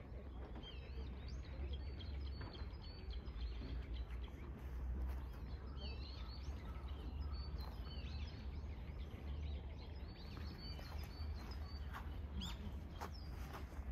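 Small birds chirping and calling again and again, with short rising and falling notes, over a steady low outdoor rumble. A few soft knocks come near the end.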